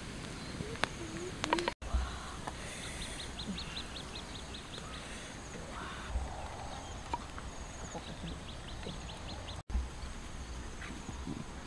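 A bird calling in two runs of quick, evenly spaced high notes, the first a little after two seconds and the second near the end, over quiet outdoor background.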